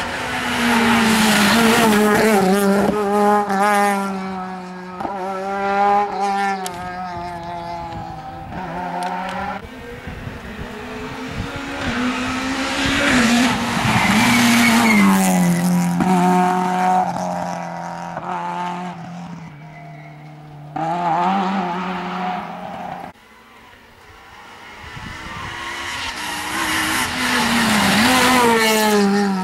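Rally cars, including Renault Clios, passing one after another at full throttle. Their engines rev high and drop in pitch at each gear change, and each car is loudest as it goes by. The sound breaks off suddenly about two-thirds of the way through, then the next car builds up again.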